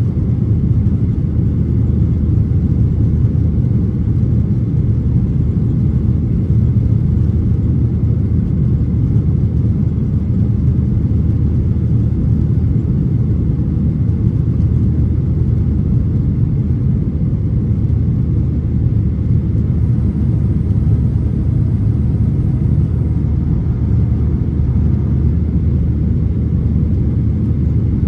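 Boeing 737-800's CFM56-7B jet engines running at climb power just after takeoff, heard inside the cabin as a loud, steady low rumble.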